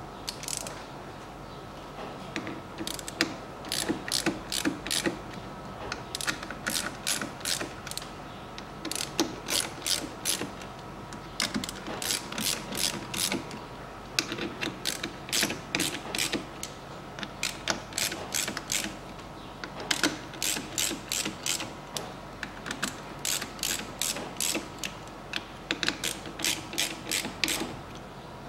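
Hand ratchet clicking in quick runs with short pauses as the screws of the fuel filter housing lid are tightened.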